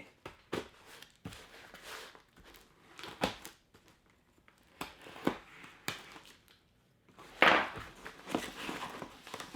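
Cardboard box being opened and its bubble-wrap packing handled: scattered knocks and taps with bursts of crinkling and tearing, the loudest about seven and a half seconds in.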